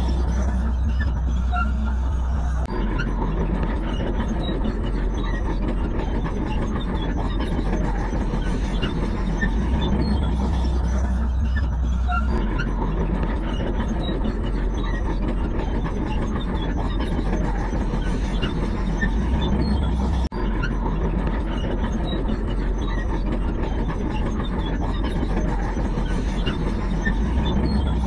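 Heavy diesel earthmoving machinery running steadily with a deep engine rumble. The tone and low hum change abruptly several times.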